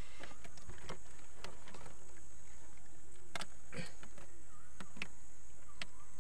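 Irregular knocks, taps and rustles from handling a fish and a nylon gill net against a wooden boat's hull, about a dozen short sharp sounds spread unevenly. A steady high-pitched drone runs underneath.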